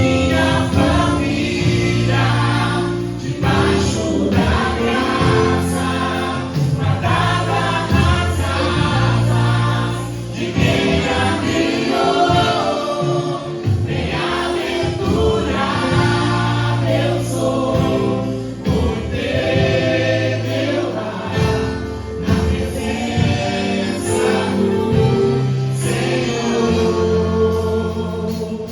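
Christian worship song sung by a choir over instrumental backing, with a steady bass line under the voices.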